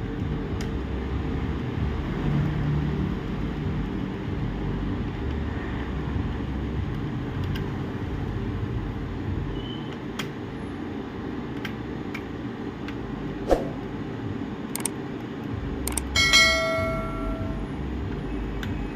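Small clicks and taps of screwdrivers and parts during a laptop teardown, over a steady low hum. About sixteen seconds in, a small metal object clinks and rings briefly with a bright tone.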